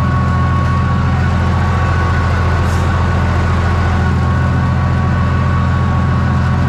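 Ursus C-360 tractor's diesel engine pulling a plough under steady load in first gear, a loud even drone with a thin steady whine above it.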